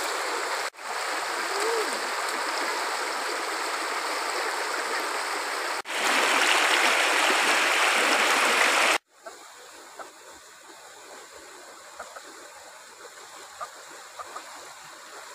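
Shallow rocky stream rushing and splashing over stones, louder for about three seconds partway through, then dropping suddenly about nine seconds in to a quieter, more distant rush.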